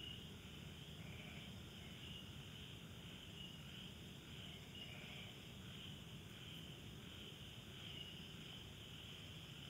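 Faint chorus of crickets trilling, the high trill swelling and fading every second or so over a low background rumble.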